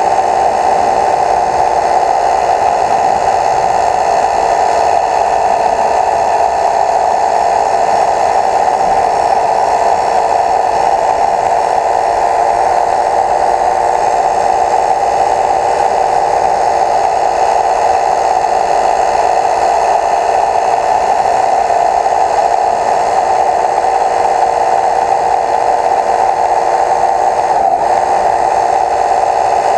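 A small motor whirring steadily and loudly, with no change in pitch or level.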